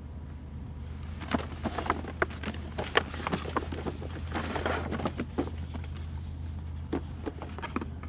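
Rustling and small knocks of a shopping bag and a cardboard gift box being handled and opened, irregular and continuing from about a second in, over the steady low hum of a car cabin on the move.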